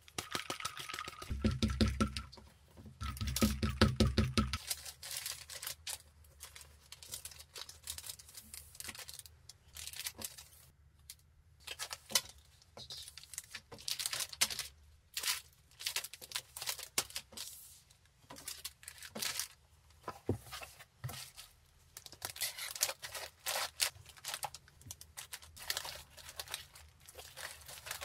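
A sticky lint roller rolled twice over fabric pouches in the first few seconds. After that, clear plastic bags and bubble wrap crinkle and rustle in many short bursts as they are handled.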